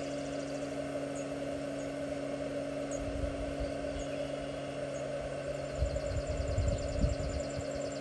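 Steady electrical hum and whir from a 750-watt power inverter running a single-cup coffee maker as it heats water, with the inverter at its maximum load. A few low thuds come about six to seven seconds in.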